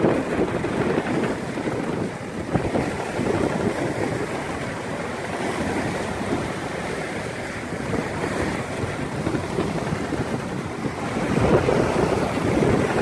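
Wind buffeting the microphone over the rush of sea water past a sailboat's hull as it sails on open ocean, swelling louder near the end.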